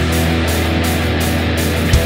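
Rock music with electric guitar over a held bass note and a steady beat.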